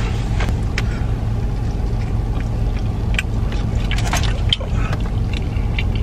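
Steady low rumble of a car idling, heard from inside the cabin, with a few faint small clicks and taps over it.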